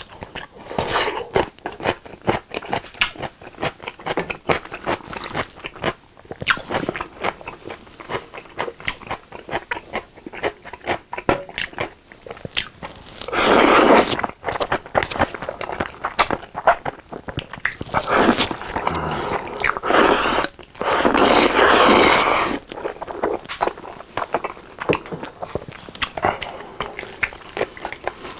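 Close-miked eating: crunchy bites and wet chewing of a pickle, then loud slurps of saucy fried noodles, about halfway through and twice more a few seconds later, with chewing between.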